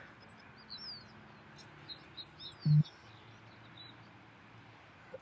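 Small birds chirping in quick, high, downward-slurred notes, with one short low thump about two and a half seconds in.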